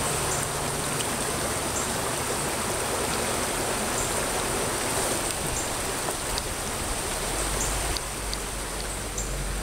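Small creek water flowing and rippling, a steady rushing. A low rumble joins in from about seven seconds in.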